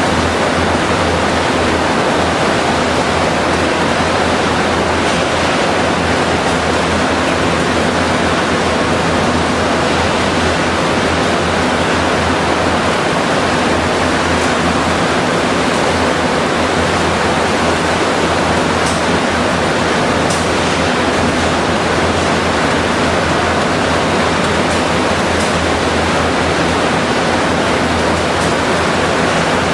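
Steady, loud roar of a lignite power plant's running machinery and ventilation, with a low electrical hum beneath it and no change in level.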